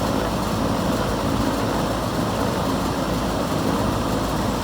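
York rooftop air-conditioning unit running steadily: an even rush of air over a low hum. The unit has just been restarted after an evaporator coil repair and is being topped up with refrigerant.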